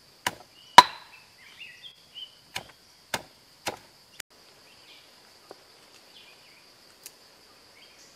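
A stone pestle pounding chopped lemongrass in a heavy stone mortar: sharp knocks, about six in the first four seconds, the loudest just under a second in, then only a couple of faint taps as the pounding stops.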